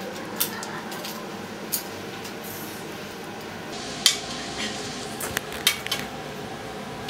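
Sharp metal clicks and clanks from a folding kick scooter being handled and worked at, a handful of them spread out and loudest about four seconds in.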